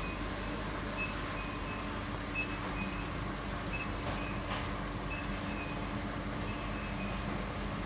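40 kW high-frequency induction heating machine running under load while heating a 35 mm rod: a steady electrical hum with a thin high whine. Short high chirps repeat about twice a second throughout.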